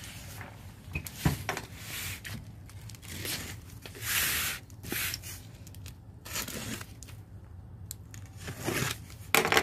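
A cardboard box being opened by hand: packing tape tearing and cardboard scraping and rustling in short irregular bursts, the longest about four seconds in.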